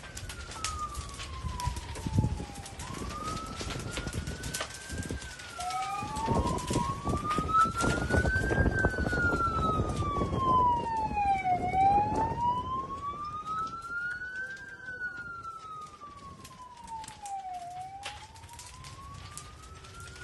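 Emergency vehicle siren wailing in slow rises and falls, with a second siren overlapping it for a few seconds early on. Under it, the crackling and popping of a burning house, with a low rushing noise that swells in the middle.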